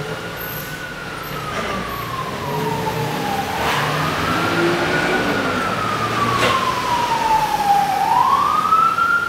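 Emergency vehicle siren wailing, its pitch rising and falling slowly every few seconds and growing louder. A couple of brief clicks are heard under it.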